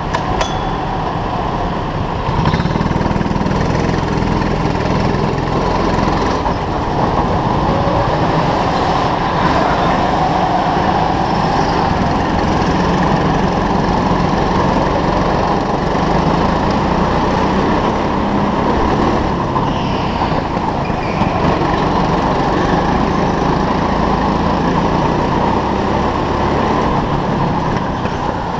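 Indoor rental go-kart's motor running under throttle, heard from on board; it gets louder about two and a half seconds in as the kart pulls away, then holds steady while it laps.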